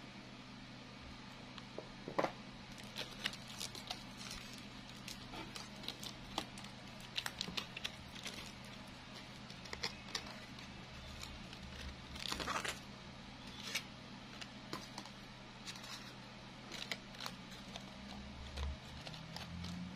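Close handling of a handmade flower made of stiff plastic petals and crinkled leaves as wire is wound round its stems: scattered crinkles, rustles and small clicks, with a longer rustle about twelve seconds in. A faint steady low hum lies underneath.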